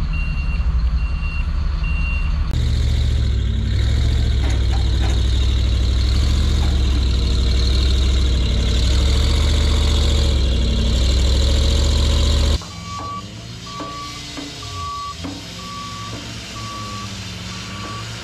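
Truck backup alarms and engines in three cuts. First a high backup alarm beeps steadily over an engine. Then a truck engine runs loud and steady up close, and from about two-thirds of the way through a lower backup alarm beeps about once a second while a reversing dump truck's engine rises and falls.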